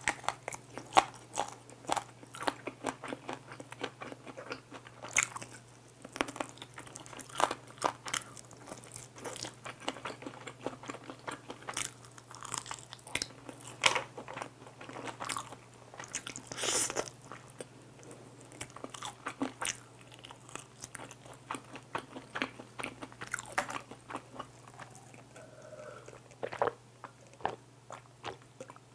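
Close-miked biting, crunching and chewing of sauce-coated crispy fried chicken: many sharp crunches with wet chewing in between, thinning out near the end.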